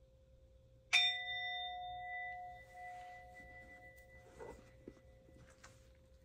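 A bell struck once about a second in, ringing with several clear tones that fade away over the next few seconds, marking the end of a period of silent reflection.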